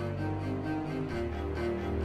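Background film music with deep, sustained notes. The bass note steps down about a second in.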